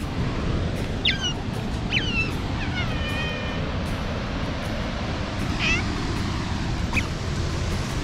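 Asian small-clawed otter giving about five short, high chirps that drop in pitch, one of them a little longer, over a steady rushing background.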